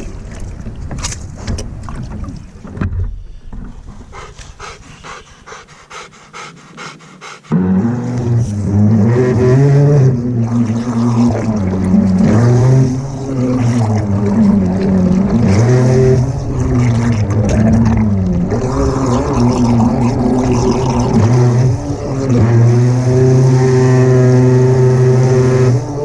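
Remote-control boat's motor, heard from on board, starts suddenly about seven seconds in and runs on as a loud hum whose pitch rises and falls with the throttle as the boat pulls away through the water. Before that, a run of small knocks while the boat sits at the stone bank.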